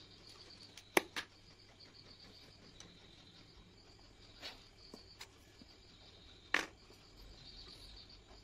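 Crickets chirping in a steady pulsing trill in the background. A few sharp clicks and taps come from drawing tools being handled on the table, a loud pair about a second in and another loud one near the end.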